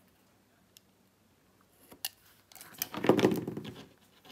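Craft knife scoring a thin card strip on a cutting mat: a faint tick and a click, then about a second of scratchy scraping near the end.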